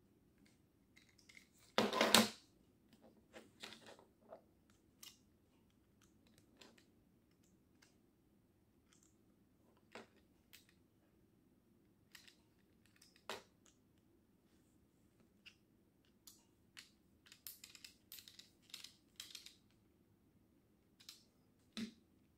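Small hex driver turning screws in a 3D-printed RC car wing mount, with scattered light clicks and rattles of the plastic parts being handled. The loudest clatter comes about two seconds in, and a run of quick clicks comes later on.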